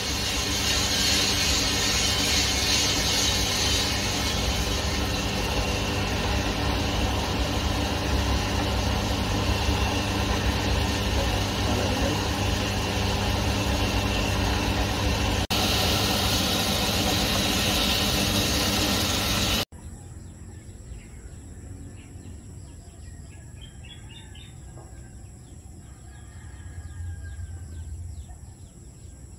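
A Diedrich coffee roaster runs with a steady, loud fan-and-motor hum as the roasted beans drop from the drum into the cooling tray and are stirred. About 20 s in, it cuts off abruptly to a much quieter outdoor ambience with a few bird chirps and a steady high-pitched whine.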